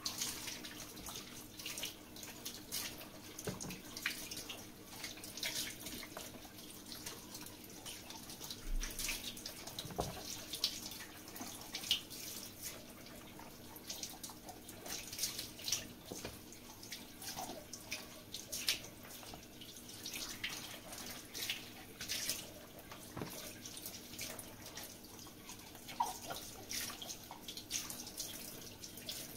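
Water splashing and dripping in short, irregular splashes.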